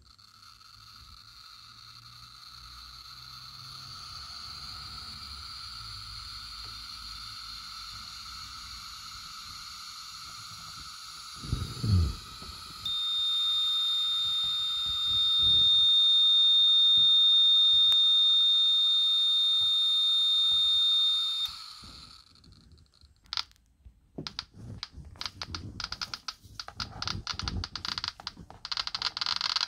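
FH 40 T Geiger-counter dose-rate meter counting so fast, near pitchblende uranium ore, that its clicks run together into a hiss that swells over the first ten seconds. About halfway through, a loud steady high warning tone joins in. Both cut off suddenly, followed by scattered clicks and handling knocks.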